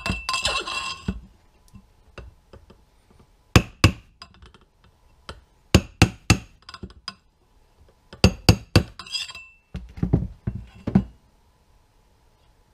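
Series of sharp metallic knocks, in clusters of two to five with a brief ring after the strongest ones, as an old suspension tube is rammed down over a motorcycle's steering stem onto a tapered roller bearing. The blows drive the bearing's interference fit down onto the stem until it seats on the dust seal.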